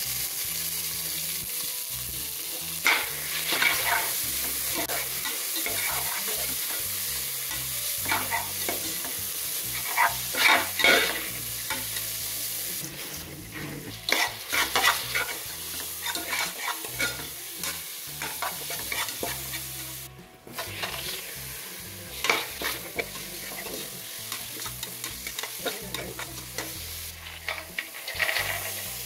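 Onions frying in hot oil in a metal pot: a steady sizzle, with a metal spatula scraping and clinking against the pot as they are stirred.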